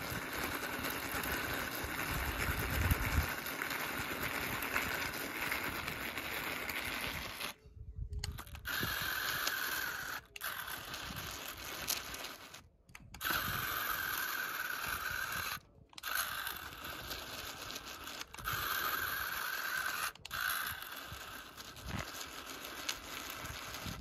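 Small electric drive motor and gears of a remote-control Swaraj 855 FE model tractor whining under heavy load as it strains against a stuck, soil-laden trolley, its wheels scraping in sand. The motor cuts out briefly about five times and restarts, with a higher whine in some spells. One rear wheel is not driving because its nut has worked loose.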